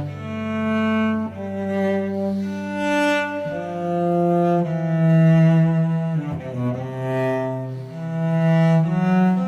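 Slow string music led by a cello, playing long held notes that change every second or so.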